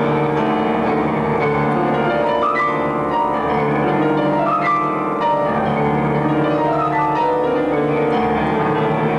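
Instrumental music led by piano, with held low notes under a moving melody.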